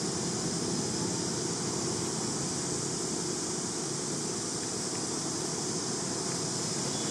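Steady, even hiss of outdoor background noise with no distinct sounds standing out.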